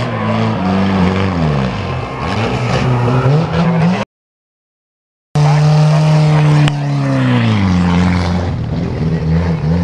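Engines of 2-litre rear-wheel-drive banger racing cars revving up and down as they jostle on the bend, their pitch climbing and dropping repeatedly. The audio cuts out to silence for about a second just after the middle.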